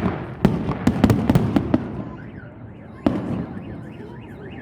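Fireworks bursting: a quick volley of sharp bangs in the first two seconds, then one more bang about three seconds in, each with a rolling echo. In the second half a car alarm starts to wail faintly, rising and falling.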